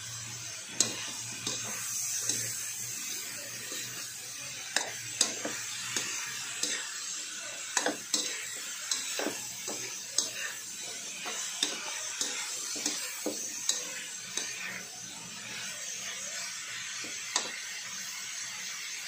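A metal spatula scraping and knocking against a stainless steel wok while vegetables and pork are stir-fried over a steady sizzle. The knocks come irregularly, thick in the middle, and stop a little before the end.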